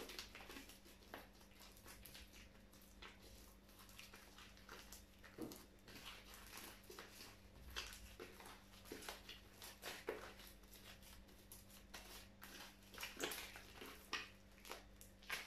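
Glue-and-beer slime being kneaded and stretched by hand, giving quiet, irregular sticky squelches and small pops, with a faint steady hum underneath.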